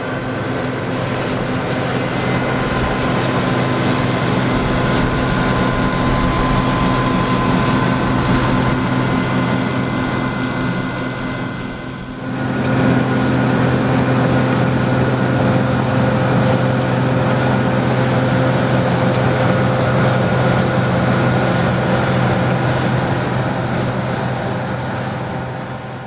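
John Deere 9550 combine running steadily under load while picking up and threshing swathed rye: a diesel engine and threshing machinery with a steady hum and several constant whining tones. The mix of tones shifts slightly about halfway through.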